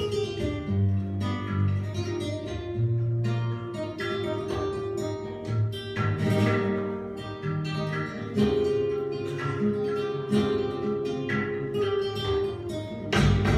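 Live Argentine tango music played on acoustic guitar: plucked notes and strummed chords, with long held notes underneath.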